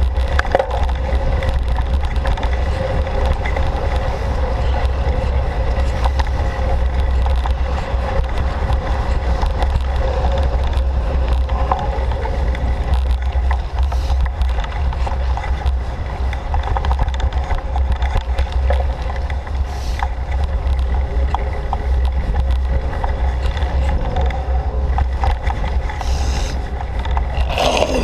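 Steady rumble of wind on the helmet-camera microphone mixed with bicycle tyres rolling over a rough dirt trail, with scattered small knocks and rattles from the bike. A brief louder rush comes near the end.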